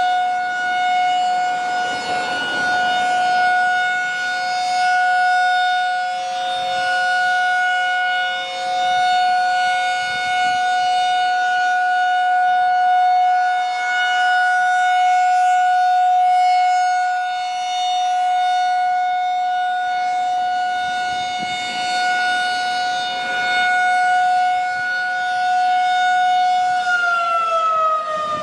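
Federal Signal 2001-SRN rotating electromechanical outdoor warning siren sounding a steady tone on a routine test. Its loudness swells and fades every few seconds as the head turns. Near the end it begins to wind down, the pitch falling.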